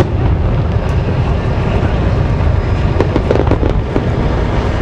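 Aerial fireworks display: a steady low rumble of shell bursts, with a cluster of sharp crackling pops about three seconds in.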